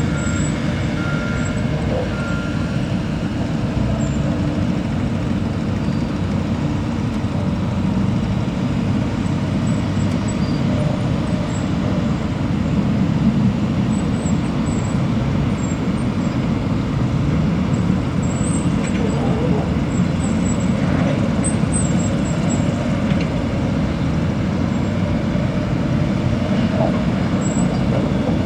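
Steady low rumble of a heavy vehicle or machinery engine running, with an intermittent reversing beep over the first few seconds.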